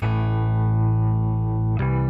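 Background music: sustained chords that begin abruptly, with a new chord struck near the end.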